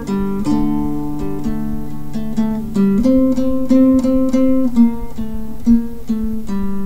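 Acoustic guitar music: plucked notes moving over held chords at a steady, gentle pace.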